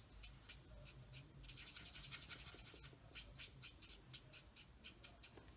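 Faint, quick strokes of a Stampin' Blends alcohol marker's tip rubbing back and forth on cardstock, a few strokes a second. This is the lighter shade being worked over the darker one to blend the shading out.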